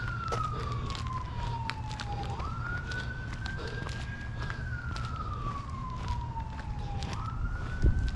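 Emergency vehicle siren on a slow wail: a single tone rises quickly, then sinks slowly, repeating about every five seconds. Light clicks and a low rumble run underneath, with a thump near the end.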